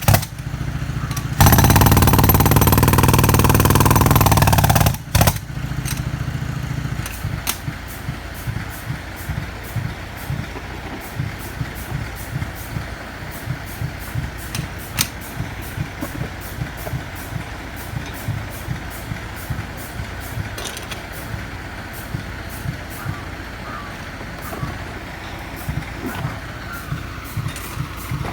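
An engine idling with a regular low throb, a couple of beats a second, after a loud rushing noise of a few seconds near the start.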